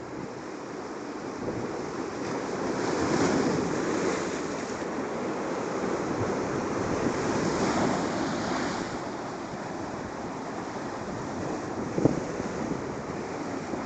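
Strong sea waves breaking and surging, swelling louder about three seconds in and again around eight seconds, with wind buffeting the microphone. A brief knock about twelve seconds in.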